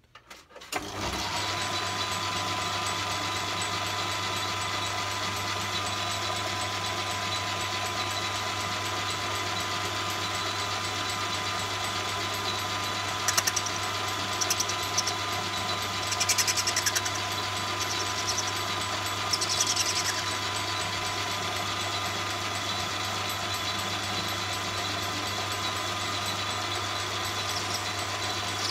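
Myford lathe motor starting about a second in, then running steadily with a hum and a steady whine. Several brief high-pitched scraping bursts between about 13 and 20 seconds in, as the tool faces the end of brass bar stock.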